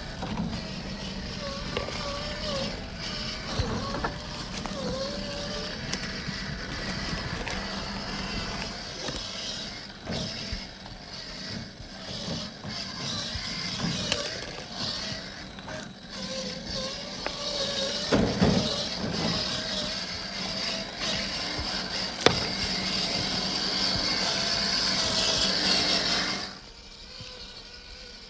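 Electric motor and geared drivetrain of an Axial SCX10 III RC crawler running, its pitch wavering as the throttle changes, with a couple of sharp clicks; the sound cuts off abruptly near the end.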